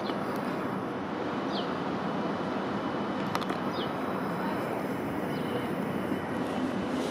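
Steady railway-station background noise on a platform, with three short, high, falling chirps and a single click about halfway through.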